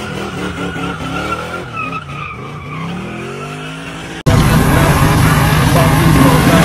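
V8-powered G-body car doing a burnout in circles, its tyres squealing while the engine revs rise and fall. About four seconds in, a cut to a much louder, closer engine note that wavers up and down.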